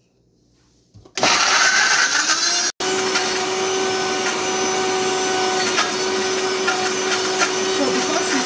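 A Vitamix high-speed blender switches on about a second in and runs loud and steady, chopping through frozen mango chunks with milk. It holds a steady hum throughout, with one split-second dropout a little before three seconds in.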